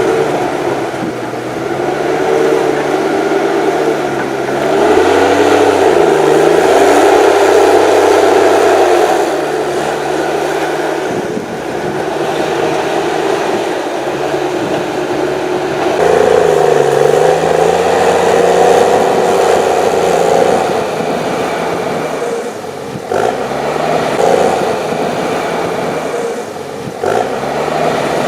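HSM 904 S forestry machine's 6.7-litre diesel engine working under load, its pitch rising and falling as it revs up twice, with some mechanical clatter.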